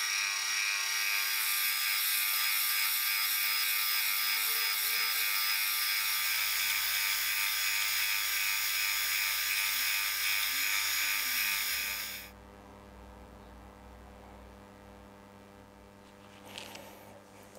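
Bench milling machine running with a steady high whine while boring the crankshaft hole through an aluminium crankcase block; it stops abruptly about twelve seconds in. A couple of light metallic clicks follow near the end as the bore is measured by hand.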